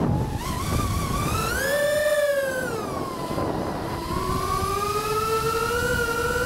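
FPV quadcopter's motors whining. The whine drops away sharply at the start, then rises and falls in pitch with the throttle over a steady rush of air.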